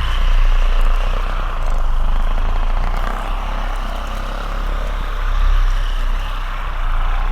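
Handheld electric massage vibrator running with a steady motor hum, its level swelling and easing a few times.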